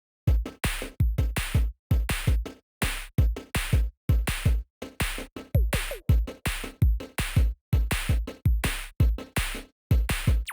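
Electronic background music with a steady drum-machine beat and a heavy kick drum, starting just after silence.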